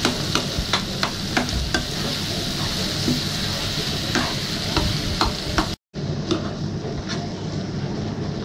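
Goat blood, onions and chillies frying in a nonstick frying pan: a steady sizzle with frequent sharp clicks and scrapes of a spatula stirring against the pan. About six seconds in the sound cuts out for a moment, then resumes with a softer sizzle and fewer clicks.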